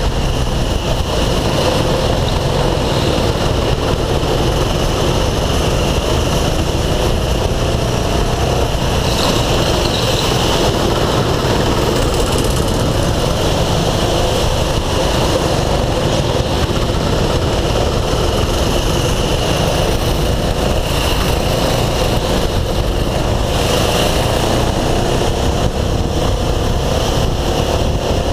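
Go-kart engine heard from the driver's seat, its pitch rising and falling as the throttle opens and closes through the corners.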